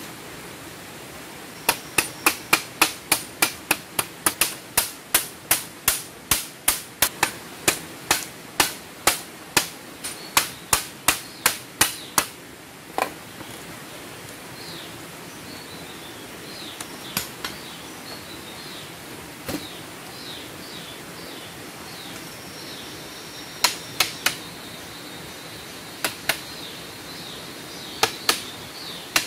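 Sharp wooden knocks, about three a second for some ten seconds and then a few scattered ones: bamboo slats being hammered into a bamboo door frame. Short high chirping calls sound in the quieter middle stretch.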